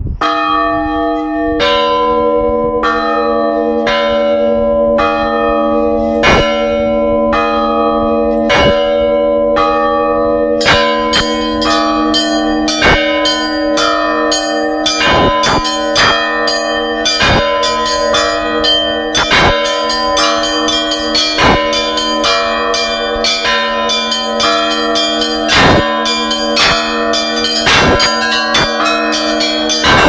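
Orthodox church bells rung by hand from the belfry. For about the first ten seconds two bells, one of them the large bell, are struck in even alternation over their long hum. Then the smaller, higher bells join in with a faster, busier ringing.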